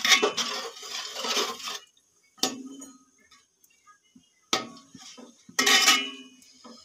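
Flat steel spatula scraping and clinking against a metal pot while stirring chicken pieces in a thick gravy. The stirring is continuous for the first couple of seconds, then comes in three shorter strokes.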